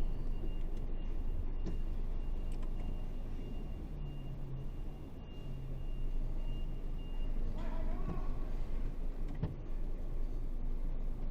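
Diesel engine of an Isuzu 8x4 heavy truck running steadily at low revs, with a faint steady high tone over the first seven seconds or so and a few light knocks.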